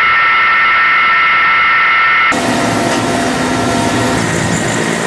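Mi-8AMTSh transport helicopter running on the ground, its turbine engines and rotor giving a steady high whine over a rushing noise. About two seconds in, the sound cuts abruptly to the denser, fuller drone heard inside the helicopter's cabin.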